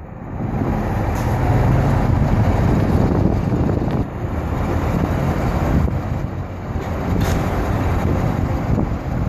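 2016 Chevrolet Corvette Stingray's 6.2-litre V8 idling steadily, heard from outside the car.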